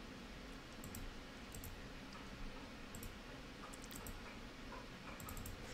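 A few faint, irregularly spaced clicks from a computer mouse and keyboard, over low room noise.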